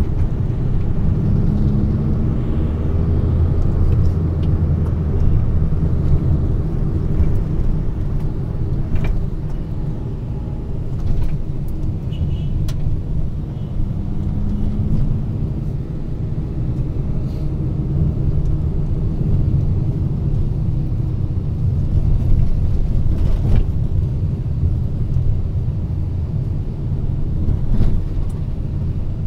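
Engine and road noise from inside a moving vehicle: a steady low rumble with an engine hum that rises slightly in pitch twice, with scattered light rattles and clicks.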